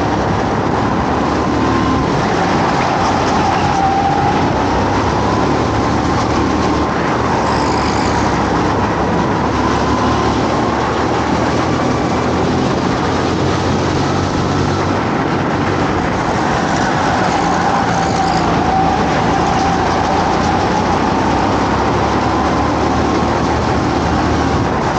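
Go-kart engine running under race load, its pitch rising and falling as it speeds up and slows down around the track.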